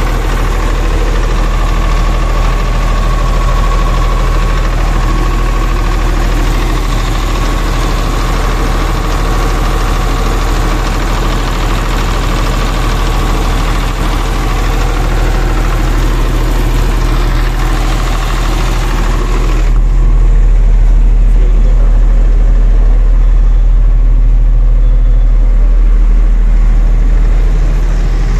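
Diesel engine of an old Kirloskar 30 kVA silent-canopy generator set running steadily with a strong low hum. About twenty seconds in, the sound turns duller and heavier as its higher part drops away.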